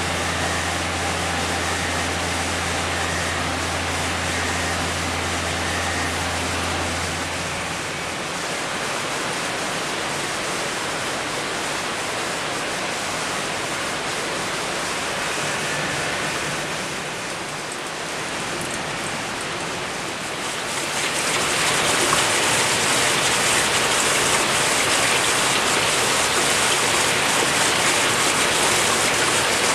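Steady rush of water running into rows of hatchery rearing tanks, growing louder and brighter about 21 seconds in. A low electric hum runs under it for the first seven or eight seconds, then stops.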